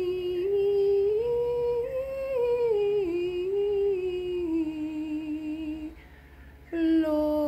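A person humming long, held notes whose pitch drifts slowly up and down, a slow chant-like tune; the humming breaks off about six seconds in and starts again near the end.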